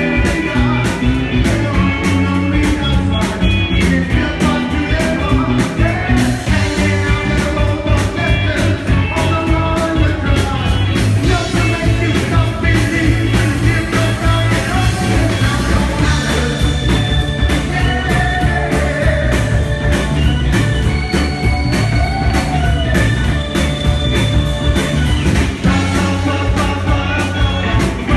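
Live rock band playing electric guitars, bass guitar and drums with a steady beat, a man singing lead over it.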